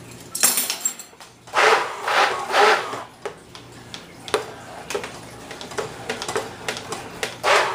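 A spoon stirring thin, watery salsa in a bowl. It makes a few swishing scrapes in the first three seconds, lighter taps through the middle, and another scrape near the end.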